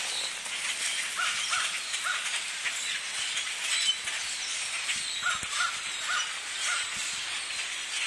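A huge flock of birds calling all at once: a dense, continuous chatter of many overlapping calls, with short repeated notes standing out now and then.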